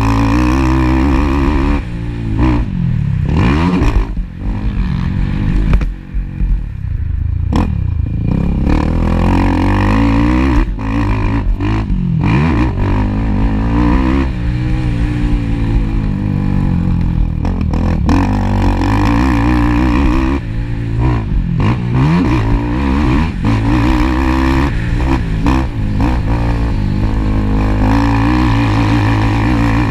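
Racing ATV engine revving hard and dropping back over and over, its pitch climbing and falling every second or two as the throttle is worked around a motocross track.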